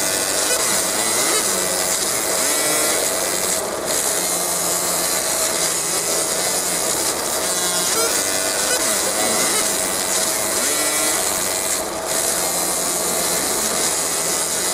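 50 W Raycus fiber laser deep-marking steel: a steady hiss and crackle of the beam burning into the metal, with a constant mid-pitched tone under it. The high hiss drops out briefly twice, about four and twelve seconds in.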